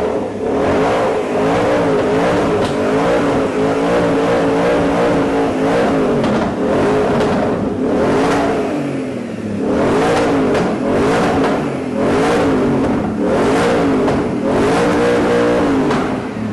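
Audi S4's V8 engine being revved over and over, its pitch rising and falling with each blip of the throttle, with a short easing-off about nine seconds in.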